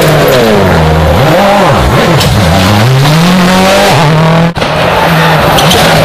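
Rally car engines driven hard: the engine note falls and climbs several times as the car brakes, changes gear and accelerates away. An abrupt cut about four and a half seconds in leads to another car holding a steady high engine note.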